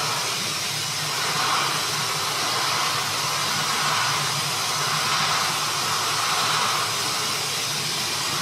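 Shot-blasting nozzle running continuously: a steady hiss of compressed air and abrasive shot blasting a steel pinball held under it.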